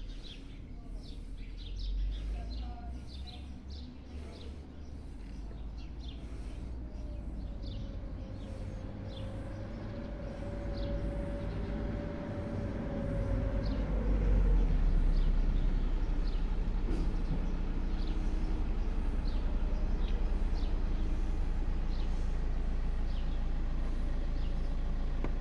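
Birds chirping over a low steady rumble that grows louder about halfway through and then holds.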